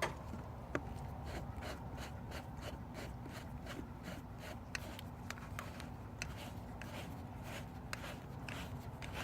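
Faint, irregular clicks and light scraping as a threaded PVC coupling, its threads wrapped in Teflon tape, is screwed together by hand.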